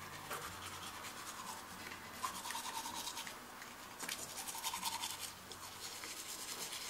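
Toothbrush scrubbing against teeth: fast, rough back-and-forth strokes in spells, with short pauses between them.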